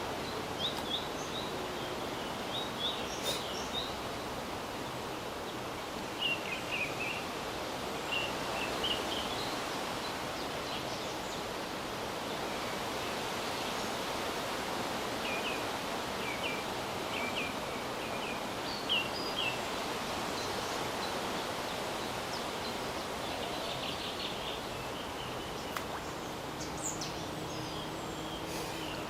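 Steady rush of flowing river water, with small birds chirping in short, high notes throughout.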